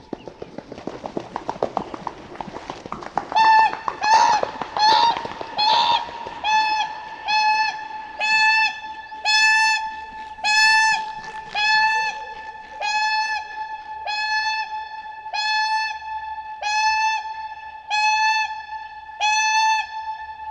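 Whooper swans giving a long series of trumpeting, bugle-like calls, about one a second, each note short and steady in pitch; the first few come in quick succession and overlap. Before the calling starts there are about three seconds of rough rushing noise.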